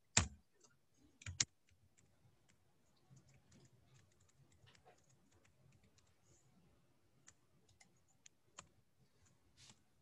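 Faint, irregular keystrokes on a computer keyboard as a line of code is typed, with a couple of louder knocks in the first second and a half.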